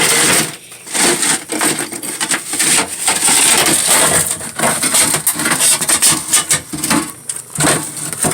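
Hard objects clattering and scraping against each other, with many quick, irregular knocks.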